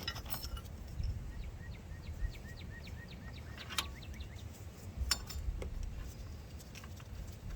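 Metal tools and parts clinking now and then, a few sharp clinks standing out. In the background a bird gives a quick run of short chirps, about five a second, for a couple of seconds.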